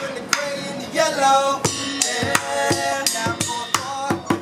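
Hip-hop music: a steady drum beat with shaker-like percussion under a melodic line, with no vocal in this stretch.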